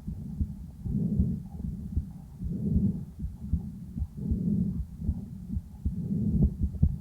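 A calf's chest heard through a stethoscope microphone at its first examination: breath sounds swelling and fading about every second and a half to two seconds, four breaths in all, with the heartbeat's short thuds coming through in between.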